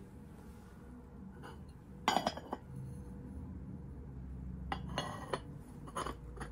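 Arita porcelain lidded box and its lid clinking against each other as they are handled. There is a cluster of clinks about two seconds in, the loudest, then further clinks around five and six seconds.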